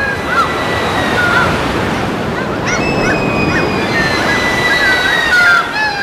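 Ocean surf washing steadily, with high thin tones over it: some held for a second or two, others short rising and falling swoops, thickest about halfway through and again near the end.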